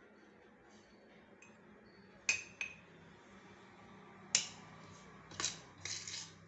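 Sharp clinks of a kitchen utensil against a mixing bowl, four of them a second or two apart, with a short scraping rush near the end as dry ingredients go into the bowl.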